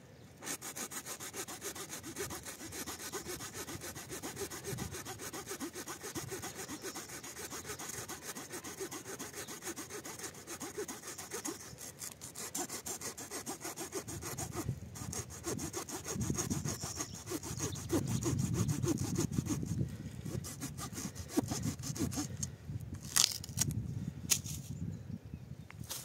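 A Victorinox Ranger pocketknife's wood-saw blade sawing through wood in a long, steady run of quick rasping strokes. The sawing grows heavier past the middle and stops a few seconds before the end, followed by a few sharp knocks.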